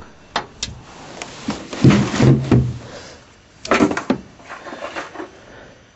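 Scattered knocks and clicks with some rustling, with two short, low, muffled bursts about two and four seconds in.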